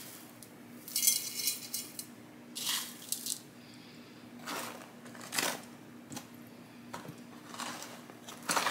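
Hands scooping and scraping up gritty cactus potting mix studded with pumice: short rattling rustles of grit about six times, over a faint steady hum.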